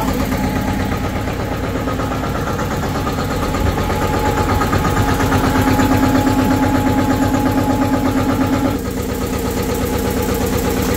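Tractor's diesel engine running steadily. It gets louder from about four seconds in and drops back suddenly a couple of seconds before the end.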